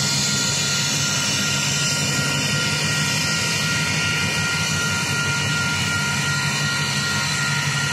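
San Joaquin Valley Railroad diesel locomotives passing slowly through a grade crossing, their engines running steadily, while the crossing's warning bell rings without a break.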